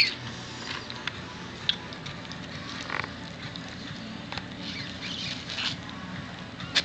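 Newborn miniature dachshund puppy breathing with faint gurgly, croaking sounds and small scattered noises over a low steady hum: fluid in its lungs after a long delivery.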